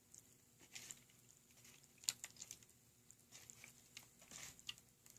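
Faint sticky clicks and soft squelches of freshly mixed borax slime being kneaded and pulled by hand, scattered irregularly.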